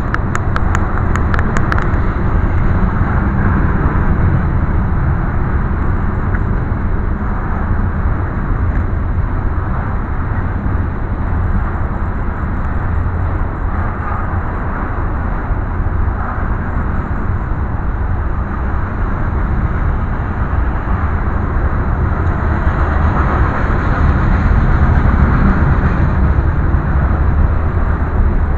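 Hopper cars of a Canadian Pacific coal train rolling past: steel wheels on the rails making a steady, loud low rumble, with a few sharp clicks near the start.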